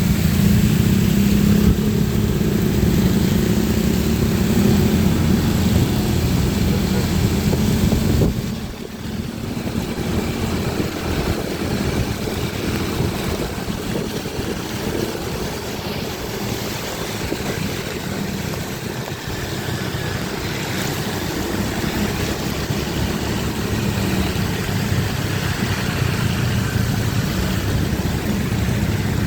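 Motorcycle engine running on the move over a wet road in the rain, with a steady rush of wind and road noise. The engine eases off about eight seconds in, then builds again slowly.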